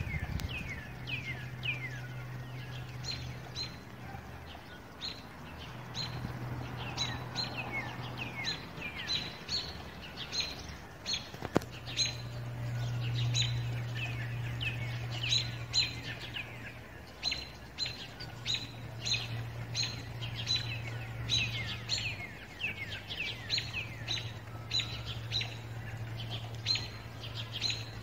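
Small birds chirping busily: short, quick downward-sweeping chirps, several a second. Beneath them runs a low, steady drone that fades in and out, from a Cessna 425 Corsair turboprop cruising high overhead. One sharp click about eleven seconds in.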